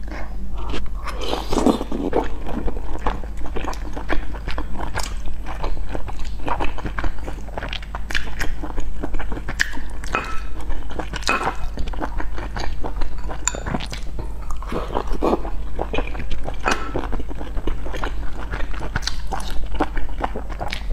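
Close-miked eating of boiled dumplings: biting and chewing with irregular wet mouth clicks and smacks, over a steady low hum.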